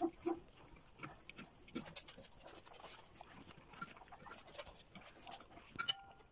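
A dog making small mouth sounds: faint, irregular clicks and smacks.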